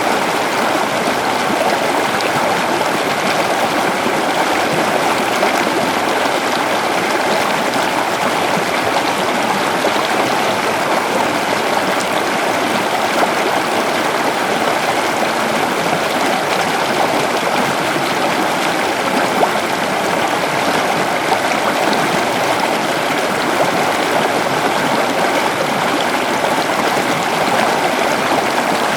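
Waterfall: a steady, even rush of falling and flowing water, unchanging throughout.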